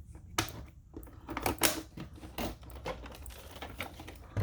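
Irregular plastic clicks and knocks as a replacement brush roller is handled and fitted into a Roomba's cleaning head.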